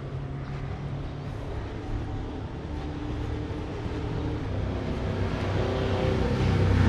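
A motor vehicle's engine running, growing steadily louder as it approaches.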